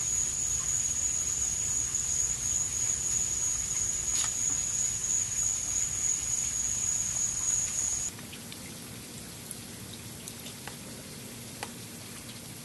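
Steady, high-pitched insect drone, of the cricket kind, over a low rumble; it cuts off suddenly about eight seconds in, leaving quieter, scattered small ticks and clicks.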